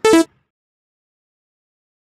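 A short, loud electronic tone of about a quarter second, falling slightly in pitch, cut in at an edit, then dead digital silence.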